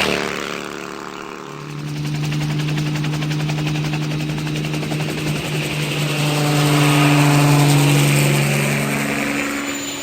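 An aircraft engine running with a fast chopping beat over a steady hum. It grows louder to a peak about three-quarters of the way through, then eases off as it passes.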